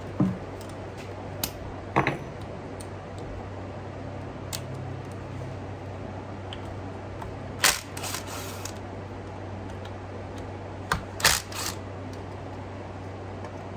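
Small metal parts and hand tools clicking and clattering a few times while a small engine's carburetor is taken apart, with the loudest clatters about eight and eleven seconds in, over a steady low hum.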